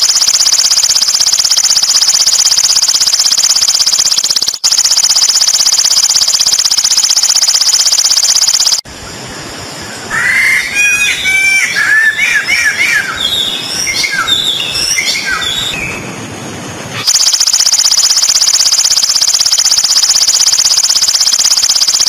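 A loud, steady high-pitched buzzing drone that stops abruptly about nine seconds in and returns about eight seconds later. In between comes a bout of many overlapping bird calls: quick, downward-slurred whistles and chirps.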